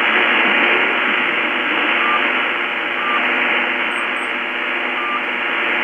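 A Lowe HF-235 communications receiver tuned to a distant shortwave AM broadcast on 9580 kHz, giving steady static hiss with the programme faded down to faint traces. A few short high beeps come about a second apart.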